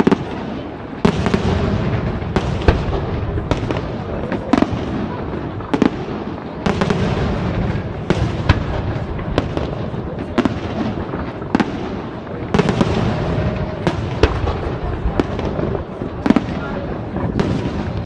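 Aerial firework shells bursting in a professional display: sharp bangs roughly once a second over a continuous rumble of overlapping reports.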